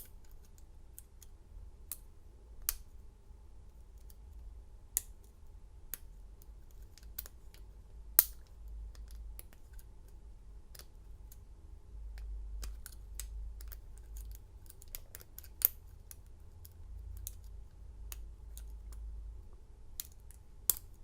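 Lock pick and tension wrench working the pin-tumbler cylinder of a vintage Master Lock U bike lock during single pin picking: scattered small metallic clicks and scrapes, with a few sharper clicks standing out.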